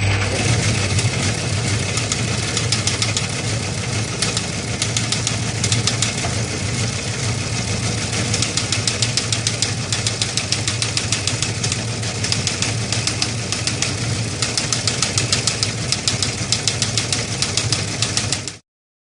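A machine running with a steady low hum and fast, even clattering ticks, cutting off suddenly near the end.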